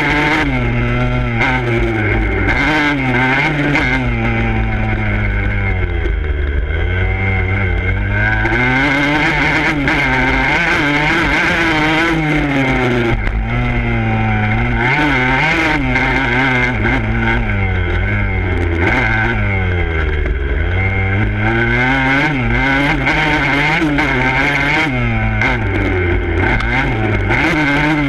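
Dirt bike engine revving up and falling away again and again as the bike accelerates, shifts and slows for turns, with two deep drops in revs, about six seconds in and again near twenty seconds.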